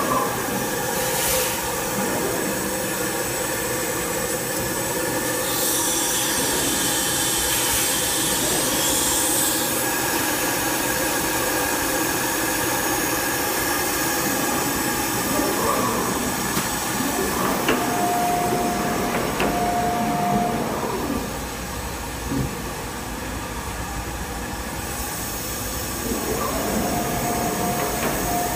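Thermwood 5-axis CNC router running: a steady mechanical hiss with several steady whining tones. A higher whine joins for a few seconds about a quarter of the way in, and a single steady tone comes and goes in the second half.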